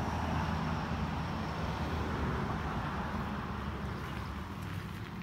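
A vehicle going by: a steady rushing noise with a low hum under it, loudest near the start and slowly fading away.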